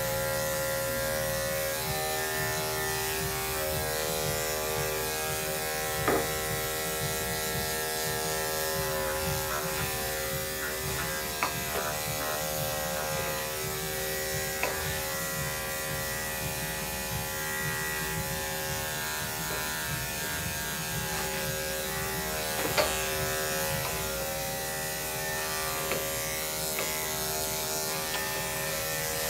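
Electric dog grooming clippers running with a steady buzz while clipping a dog's coat, with a brief sharp click now and then.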